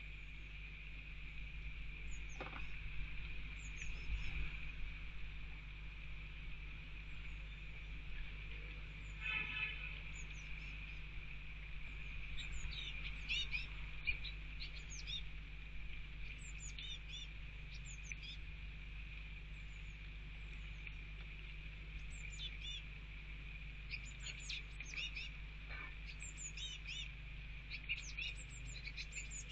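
Blue tits calling: many short, high chirps, thin at first and more frequent near the end, over a steady low hum.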